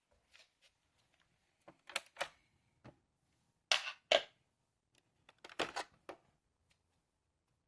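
A run of sharp clicks and light knocks in small clusters, the loudest a pair about four seconds in.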